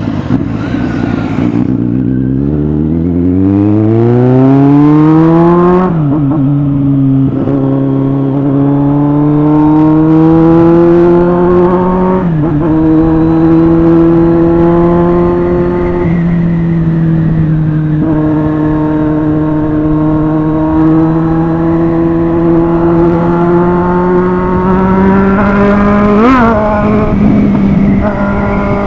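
Kawasaki Z800 inline-four engine accelerating hard, its pitch climbing for a few seconds and dropping at each upshift, then running at a steady high speed. Near the end there is one quick rise and fall in engine pitch.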